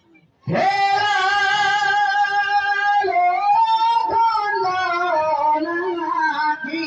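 A singer's voice through a microphone and loudspeaker, starting about half a second in with one long high held note, then sliding and wavering through a melodic phrase. A single sharp knock, likely a drum stroke, falls about four seconds in.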